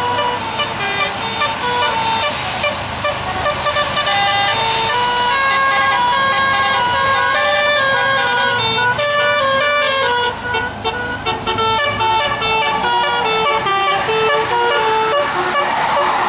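Bus 'Basuri' telolet musical air horn playing a tune of short notes that step up and down in pitch, several notes often sounding together.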